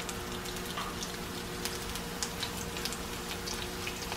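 Shrimp fritters frying in hot oil in a skillet: a steady sizzle with many small scattered pops and crackles.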